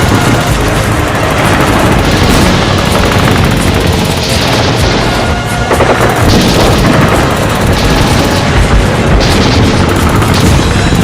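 Music mixed with war sound effects: a steady low rumble of booming explosions, with bursts of gunfire over it.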